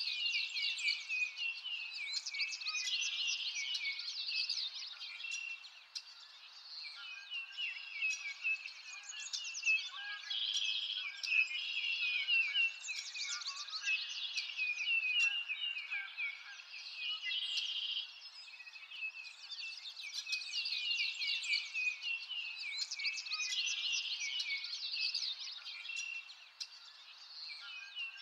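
A chorus of many small songbirds chirping and trilling continuously, their quick overlapping calls swelling and easing every few seconds.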